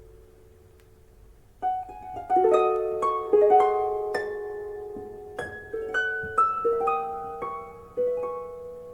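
Instrumental music from a vinyl record, played on a Thorens turntable through a tube amplifier into KEF Q300 loudspeakers. A note fades out, and after a short pause a melody of sharply plucked notes, each left ringing, starts about a second and a half in.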